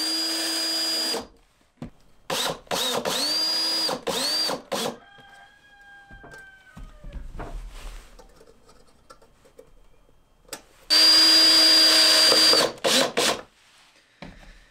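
Cordless drill driving screws through small metal brackets into the wooden hive body. It runs in short bursts, its whine rising in pitch at each start: about a second at the start, a few quick bursts over the next few seconds, then a longer run followed by quick pulses near the end.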